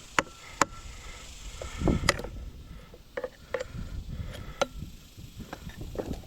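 Scattered sharp clicks and knocks, with a duller thump about two seconds in, from hand tools and parts being handled while a pool pump and its motor are taken apart.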